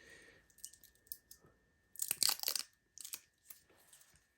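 Protective plastic film being peeled and crinkled off a new wristwatch: scattered small crackles, with one louder rustling tear about two seconds in that lasts about half a second.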